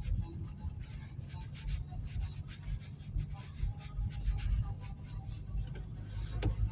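In-cabin noise of an Audi A4 B6 with the 1.9 TDI diesel, driving on a snow-covered road: a steady low rumble from engine and tyres. Over it come scattered scratchy rubbing and ticking noises, and a windscreen wiper sweeps near the end.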